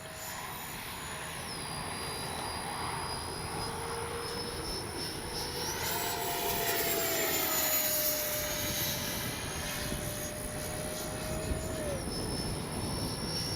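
The 64mm electric ducted fan of a foam RC F-86 Sabre jet whining in flight. Its pitch drops soon after the start, jumps up about halfway through as the throttle is opened, and drops again near the end as it is eased off.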